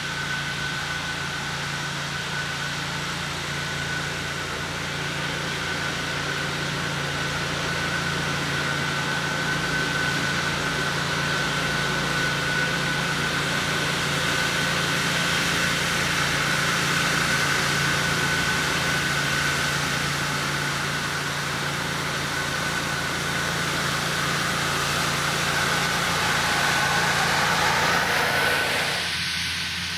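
Ventrac ET200 turbine-style blower running on a Ventrac compact tractor: a steady rush of air with a steady high whine over the low hum of the engine. The whine and much of the rush drop away about a second before the end.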